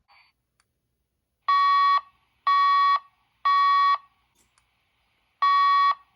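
Fire alarm speaker/strobe sounding the temporal-three evacuation tone, the standard signal for a building fire evacuation. Three half-second beeps come a second apart, then a pause, then the next set of three begins near the end.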